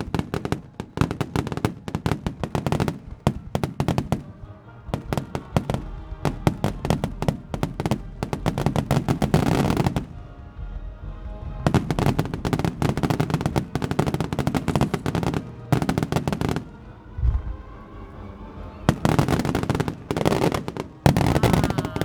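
Fireworks bursting in rapid volleys of bangs and crackles, with music playing underneath; the barrage eases twice, briefly, about halfway through and again some seconds later.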